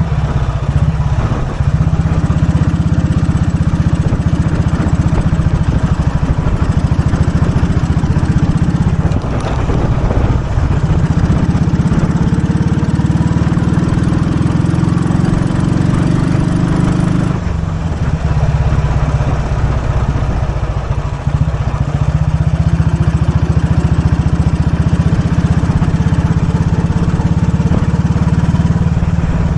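1943 Royal Enfield WD/CO's 350 cc overhead-valve single-cylinder engine running under way. The engine note dips briefly about ten seconds in and again around twenty-one seconds, then picks up again.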